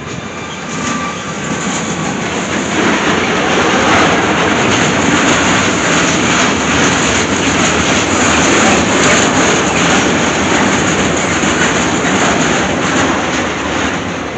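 Freight train of covered goods wagons rolling past close by: a steady rolling rumble with a rapid clatter of wheels over the rail joints, building over the first few seconds and staying loud. A faint high whine is heard in the first second or two.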